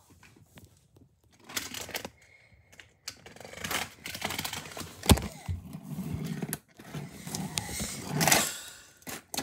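Lego bricks being handled: irregular plastic clicking and scraping as a small Lego vehicle is pushed across a studded baseplate, with a sharp click about five seconds in.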